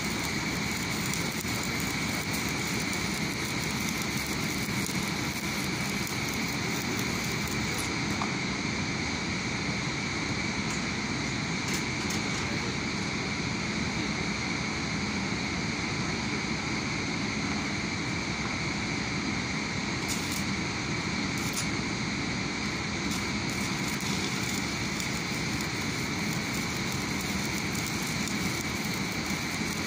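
Electric arc welding on a steel crane rail: the arc's steady crackling sizzle. The crackling stops about a quarter of the way in and starts again after about three quarters, over steady background machine noise with a few constant whines.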